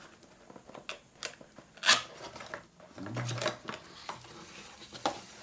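Cardboard product box being opened by hand: fingers picking at the seal with small clicks and scrapes, one louder sharp rip about two seconds in, and the card lid rustling as it swings open.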